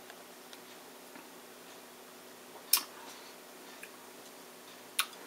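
Quiet room tone broken by two short, sharp clicks about two seconds apart, the first the louder, with a few faint ticks between.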